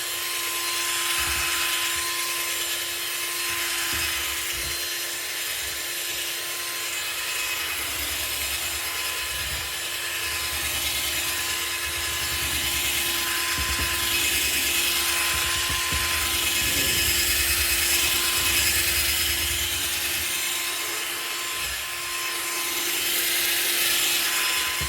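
Electric drill running steadily with a buffing wheel pressed against a plastic headlight lens, the motor's whine under a rubbing hiss as it spreads headlight sealant. The drill stops suddenly at the end.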